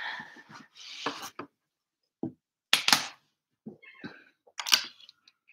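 Irregular handling noises: about six short clicks, knocks and rustles with quiet gaps between them, including one low knock a little over two seconds in.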